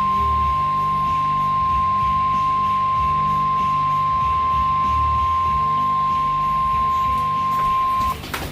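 Weather radio's 1050 Hz warning alarm tone: one steady, loud, high beep held for about eight seconds, signalling a severe thunderstorm warning. It cuts off near the end with a few brief clicks.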